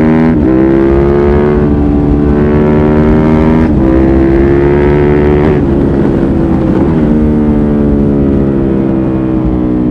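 2005 Suzuki SV650S's 645 cc V-twin through a LeoVince exhaust with dB-killer, accelerating hard. The pitch climbs and breaks briefly twice, about a third of a second in and again near four seconds, as it shifts up. It then backs off the throttle between about five and seven seconds in, and the pitch falls slowly after that.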